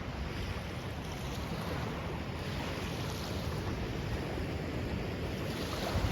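Ocean surf washing onto a sand beach, a steady rushing hiss that swells near the end, with wind buffeting the microphone.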